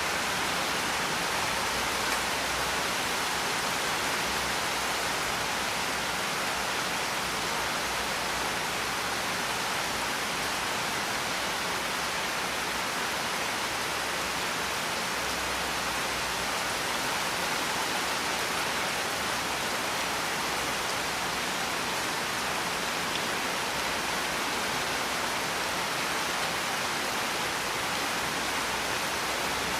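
Steady rain falling, an even hiss without let-up or distinct drops.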